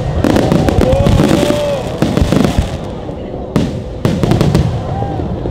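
Aerial fireworks shells bursting in a dense barrage: rapid crackling bangs through the first two and a half seconds, then two louder single bangs about three and a half and four seconds in.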